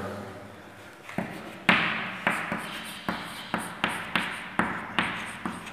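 Chalk writing on a blackboard: a quick run of sharp taps and short scratchy strokes, about two to three a second, starting about a second in.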